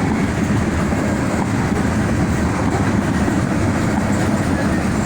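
Train cars rolling past, a steady rumble of steel wheels on the rails.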